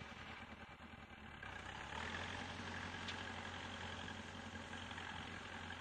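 Shibaura tractor's engine running steadily while it works a boom sprayer across the field, fairly faint, growing louder about two seconds in.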